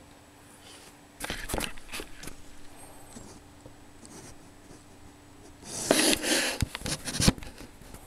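Handling noise from hands on the syringe and tubing: rustling and a few sharp clicks about a second in, then a louder stretch of rubbing with clicks near the end.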